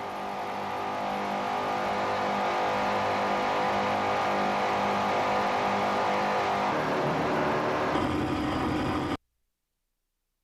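Offshore racing powerboat's twin 600-horsepower Chevrolet inboard engines running hard at speed, a steady dense engine drone. The tone shifts about seven seconds in, and the sound cuts off abruptly near the end into silence.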